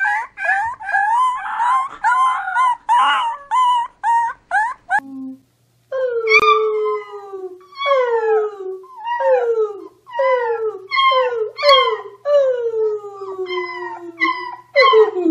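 Beagle puppies give quick, high, wavering yips and little howls. After a short pause about five seconds in, a beagle puppy and a man howl together in a string of falling howls, each about a second long.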